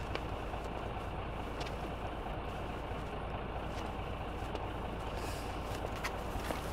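Steady rumble of an idling truck engine, with a few faint clicks over it.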